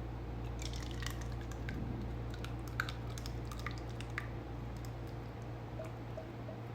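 Thick cooked cherry filling making scattered wet squelching pops and clicks for the first few seconds, then fainter small pops, over a steady low hum.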